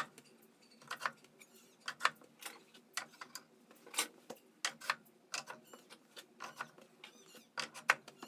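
A series of irregular light clicks and knocks, about one or two a second, with the loudest near the start and near the end.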